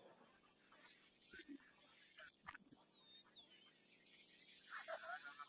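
Faint, steady, high-pitched chirring of insects in grassland, with a brief animal call near the end.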